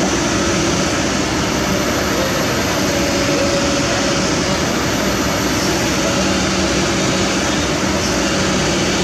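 Kobelco SK200 excavator's diesel engine running steadily at a high, even speed while the machine sits on a self-loader truck's deck.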